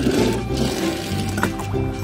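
Background music with a steady beat, with a splash of water near the start.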